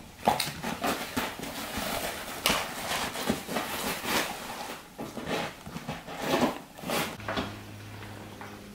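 A border collie chewing and crunching a cube of raw food, with irregular wet gnawing and crunching sounds. It stops about seven seconds in, leaving a steady low hum.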